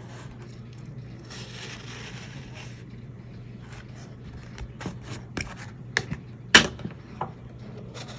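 Packaging and plastic parts of a vacuum cleaner being handled: a rustle at first, then a series of sharp clicks and knocks, the loudest about six and a half seconds in, over a steady low hum.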